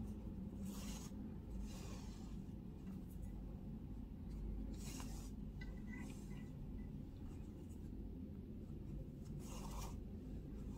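Yarn being drawn through crocheted stitches while a seam is sewn with a yarn needle: several soft, short swishes over a low steady hum.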